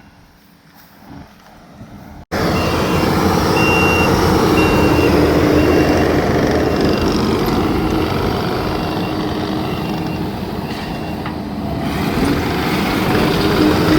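Dump truck bringing in a load of rock, its reversing alarm beeping about once a second over the loud running of its engine. The noise starts abruptly about two seconds in.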